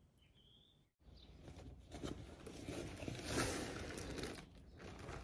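A canvas tote bag being handled and set on a table: rustling and scuffing of the fabric with a few soft knocks, starting about a second in and loudest around the middle. Before that comes a faint short high chirp.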